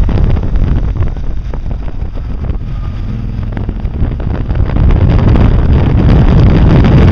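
Heavy wind buffeting on the microphone of a camera mounted on a moving Can-Am, over the machine's running engine. The buffeting eases a little about a second in and grows louder again after about five seconds.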